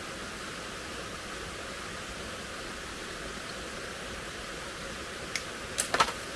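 Steady rushing of a forest stream, with a few sharp clicks or knocks close together near the end.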